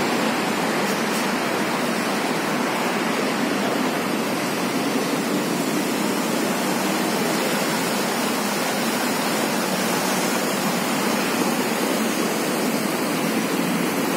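Steady rushing hiss of water falling down a water-wall fountain.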